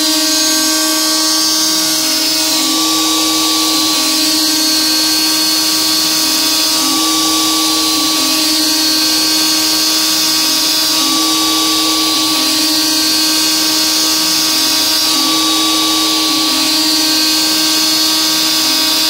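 DeWalt DWP-611 trim router, at speed setting 2, running as the spindle of an X-Carve CNC machine. Its 1/8-inch carbide two-flute endmill is dry-cutting a roughing pass in 6061 aluminum, a steady high whine with cutting hiss. Lower motor tones shift in a pattern that repeats about every four seconds as the machine moves back and forth.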